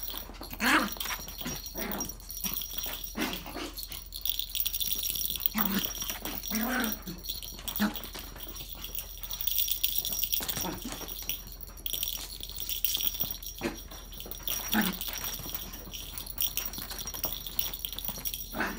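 Small Pomeranian–Chihuahua mix dog making short, scattered vocal sounds among light taps and scuffles as it plays.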